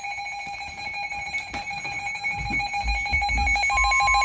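Emergency Alert System alert tones: steady electronic tones pulsing rapidly and evenly, with another steady tone joining near the end. A low rumble sits underneath from about halfway through.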